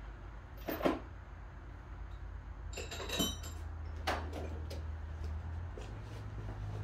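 A few sharp knocks and clunks over a low steady hum that steps up slightly in pitch near the end.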